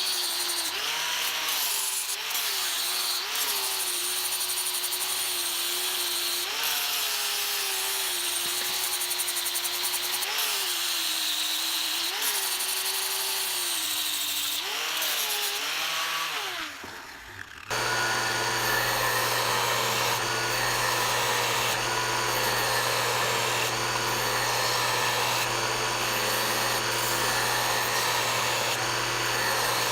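A power tool running, its pitch dipping again and again as it is loaded. Over halfway through it breaks off suddenly and a steadier machine hum with a low drone takes over.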